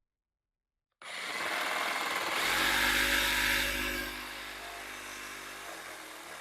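Power hacksaw running and cutting scoring marks into a bolted stack of sheet-metal pieces. It starts abruptly about a second in, is loudest in the middle, then runs on at a lower level.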